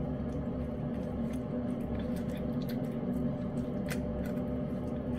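A cat eating thick wet food from a hand-held can, with quick wet clicks and smacks of chewing and licking, over a steady low hum.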